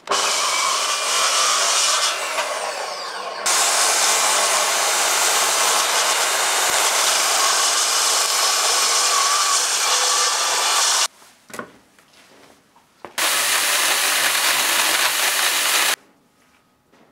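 Festool plunge-cut circular saw on a guide rail cutting lengthwise through an old oak beam, running steadily for about eleven seconds with a brief falling whine near the start. After a short quiet with a few clicks, a Festool electric chain-bar saw runs on the rail for about three seconds, then stops.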